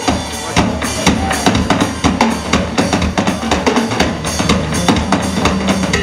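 Drum kit played live in a big-band style, a dense run of quick snare and bass drum hits, over an electric bass line.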